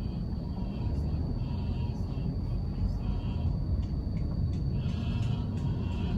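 Steady low rumble of a car driving on city roads: engine, tyre and road noise.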